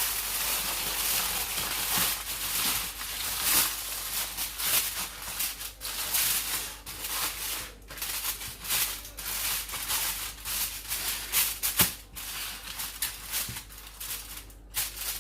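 Continuous crinkling and rustling of material being handled, with irregular crackles and a few sharper clicks. A steady low electrical hum runs underneath.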